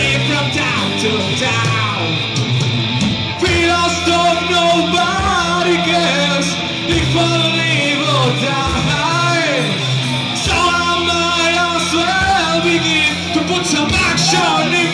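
Live heavy metal band playing at full volume: distorted electric guitar, bass guitar and drum kit, with a male lead singer singing over them.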